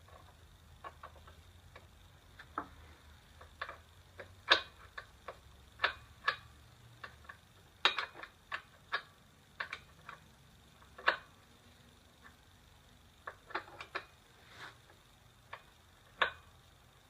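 Wrenches clicking and tapping against the nuts of a motorcycle's rear-wheel chain adjuster as the jam nut is tightened. The clicks come at an irregular pace, with the loudest taps about four and a half, six, eight, eleven and sixteen seconds in.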